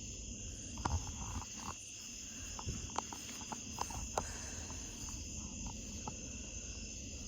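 Crickets chirping in a steady, continuous chorus, with scattered faint clicks and a low rumble underneath.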